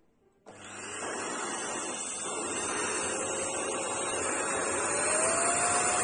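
Eluxgo EC25 vacuum cleaner switched on about half a second in, its motor spinning up to a steady airflow noise. A whine in it climbs slightly in pitch and the noise grows a little louder toward the end.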